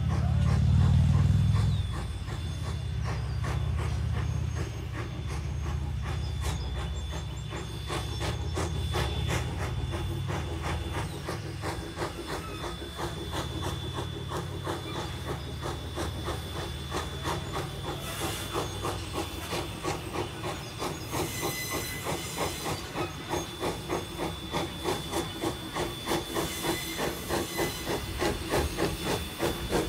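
Jeddo Coal Co. No. 85 steam locomotive working toward the listener: a steady, even beat of exhaust chuffs with hissing steam, getting louder near the end as it draws close.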